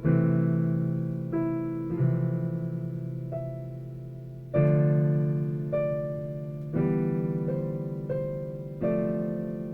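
Slow solo piano music: chords struck roughly every two seconds, each left to ring and fade before the next.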